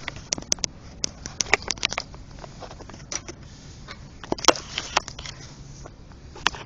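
Hand tools at work on a small single-cylinder engine: a ratchet and sockets clicking and clinking irregularly as the rocker cover bolts are loosened, with quick clusters of clicks about a second and a half in and again past the middle.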